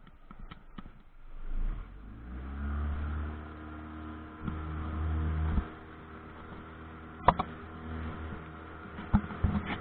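Pontoon boat's outboard motor speeding up about two seconds in, then running steadily. A few sharp knocks come near the end.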